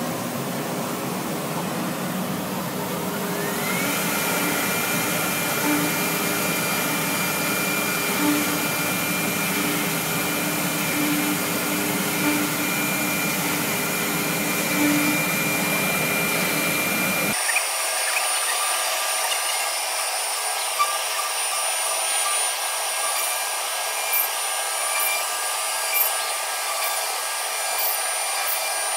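Casadei Multi Ranger RS 4221 vertical CNC panel machining centre working a wooden panel: a motor spins up with a rising whine a few seconds in, then holds a steady high whine over a hiss of machinery, with occasional light knocks as it drills. About two-thirds of the way through the sound changes abruptly: the low rumble drops out, leaving a thinner, higher whine with faint ticks.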